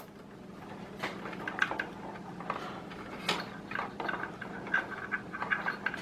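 Hands handling SATA cables inside a PC case: irregular soft clicks and rubbing of the plastic-jacketed cables against each other and the case, over a faint steady hum.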